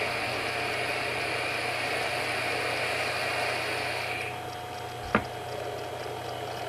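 E-cigarette being drawn on: a steady hiss and sizzle of air pulled through the atomizer over the firing coil, ending about four seconds in. After that it is quieter, with a single sharp click about five seconds in.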